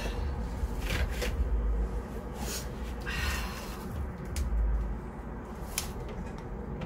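Hands handling soil, pots and newspaper on the work table: irregular short rustles and scrapes over a low rumble, with the camera being handled near the end.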